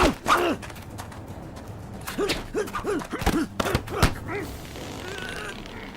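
Hand-to-hand fight: a quick run of thudding blows, each with a short grunt of effort, most packed between about two and four seconds in.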